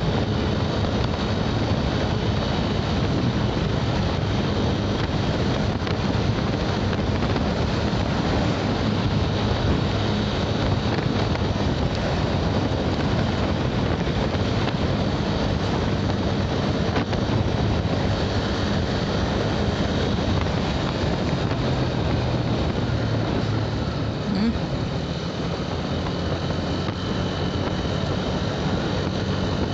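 Motorcycle riding at a steady speed: wind rushing over the rider's microphone over the engine's steady running and tyre noise, with a brief easing about 24 seconds in.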